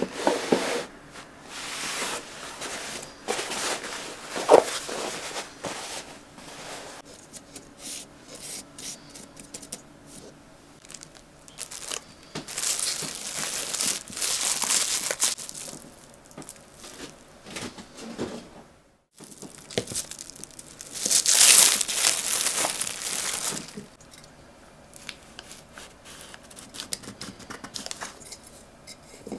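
Aluminium foil being torn and crinkled by hand, coming in two louder spells of rustling and crackling.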